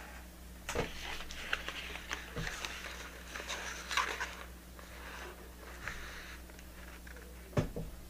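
Rustling and light clicking of packaged crochet hair on cardboard stock cards as the packs are handled and held up, with a sharp knock near the end.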